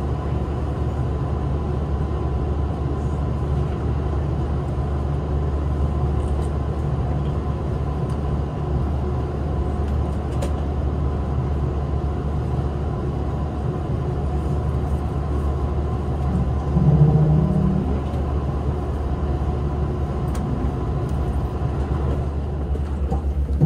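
Cabin noise of a Hankyu 2300 series electric train running towards its terminus: a steady low rumble with faint steady tones and a few faint clicks. There is a brief louder low swell about two-thirds of the way through.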